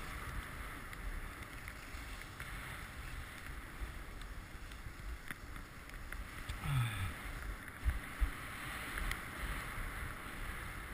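Skis sliding over packed snow with a steady hiss, while wind buffets the GoPro's microphone as a gusty low rumble. About six and a half seconds in there is a short low sound falling in pitch, and a little later two sharp low thumps as the skis hit bumps.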